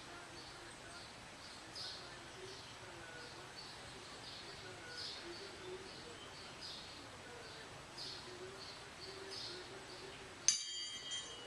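Small birds chirping over and over, short high chirps about twice a second. About a second before the end, a single metallic ringing strike with several tones rings out and fades.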